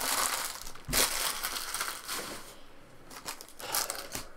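Foil trading-card pack wrappers being crumpled in the hand: a crinkling rustle, loudest in the first two and a half seconds, trailing off into a few soft taps.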